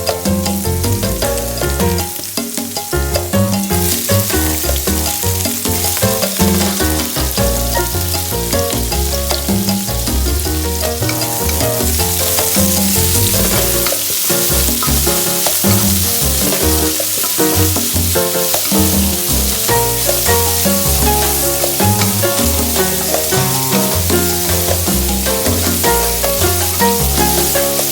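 Food frying and sizzling in a hot pan as it is stirred, the sizzle growing louder about a third of the way in. Background music plays underneath.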